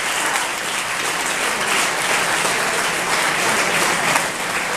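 Audience applauding steadily, a dense crackle of many hands clapping at once, in answer to the end of a speech.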